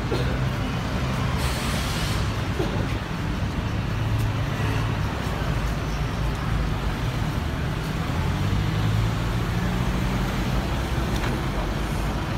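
City road traffic of cars and double-decker buses, a steady low engine hum, with a brief hiss about one and a half seconds in.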